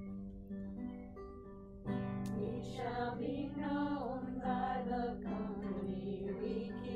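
Acoustic guitar playing a picked introduction, then about two seconds in it moves to fuller strummed chords and voices begin singing over it.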